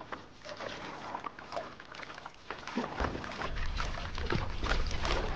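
Water splashing and lapping from paddles and a small paddle craft moving across a lake, in many short irregular splashes. Low wind rumble on the microphone comes in about halfway through and the whole gets louder.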